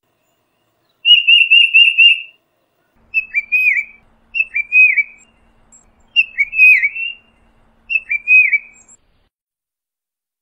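Tufted titmouse whistling: a quick run of about six clear notes, then four short phrases of down-slurred whistles spaced a second or two apart.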